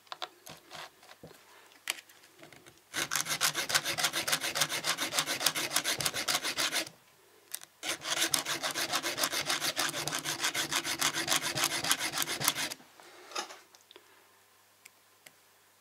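Round needle file scraping back and forth across the steel cutter teeth of a mini chainsaw's chain, sharpening them. After a few light clicks, it runs in two long spells of rapid, even strokes with a short pause between.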